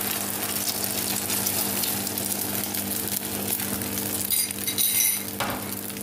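Beaten eggs sizzling in hot oil in a nonstick frying pan: a steady hiss of fine crackles over a low steady hum, briefly louder about four to five seconds in.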